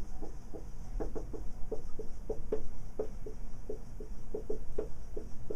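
Whiteboard marker squeaking on the board as words are written, a run of short squeaks, about three or four a second, in uneven rhythm.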